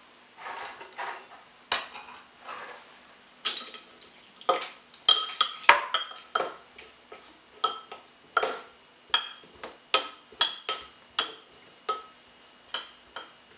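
Metal spoon stirring a cornflour and pineapple-juice paste in a glass bowl. It clinks against the glass at irregular intervals, about one or two ringing clinks a second.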